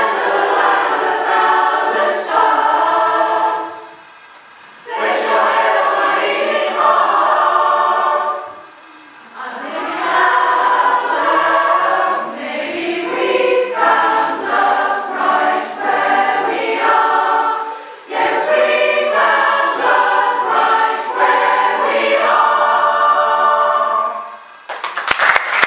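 Community choir singing a cappella in several phrases separated by short breaths, closing a pop mashup arrangement. Near the end the singing stops and the audience breaks into applause.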